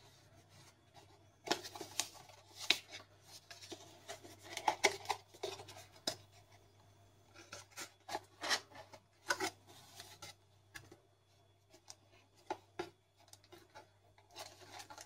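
Cardboard phone box and plastic wrap being handled: scattered short rustles, scrapes and light knocks of paperboard and film, irregular and coming in clusters, over a faint steady low hum.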